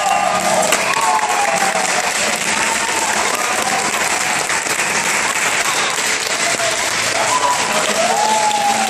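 Audience applauding, with a few voices calling out in cheers, once just after the start and again near the end.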